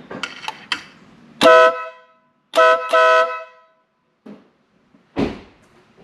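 Wolo Bad Boy electric air horn sounding three blasts, each of two tones together: one of about half a second, then two quick ones back to back. A few clicks come before it, and a short thump near the end.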